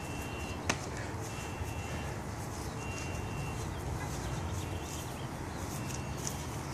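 Outdoor background noise with a steady low rumble. One sharp smack of a hand slap lands about a second in, and a few short, thin high chirps come and go.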